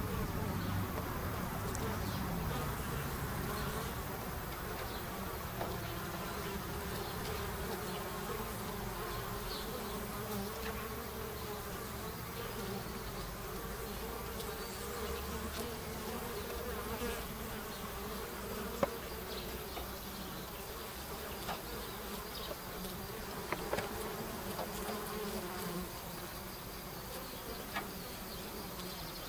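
Honeybees flying in and out of a Warré hive's entrance, a steady buzzing hum with a few faint brief clicks.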